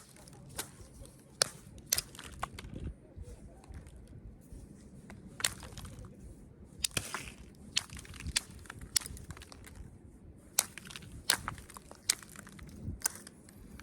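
Flint knapping: a knapping tool working a weather-damaged stone point, flakes snapping off in sharp, irregular clicks, about one or two a second, with light scraping and handling in between.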